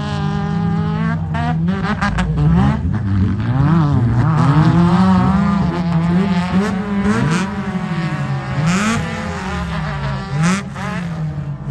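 Off-road race car engines revving up and down again and again, with more than one engine heard at times, and a few short sharp cracks.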